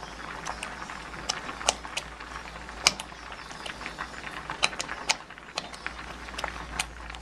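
Thick ground-chicken sauce simmering in a pan, its bubbles bursting in irregular sharp pops over a low hiss.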